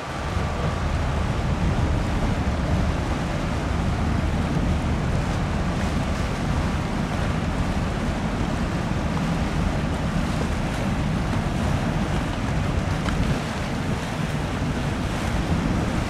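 Wind buffeting the microphone over the even low rumble of a large car ferry passing close, with the wash of its wake on the water.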